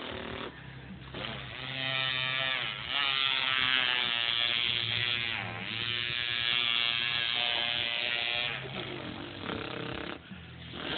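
A person imitating a two-stroke string trimmer with their mouth: a buzzing engine sound that climbs in pitch about a second in, dips briefly around the middle, then holds high before falling away near the end.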